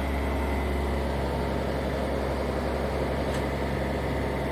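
Steady low mechanical hum, engine-like, holding an even pitch and level throughout.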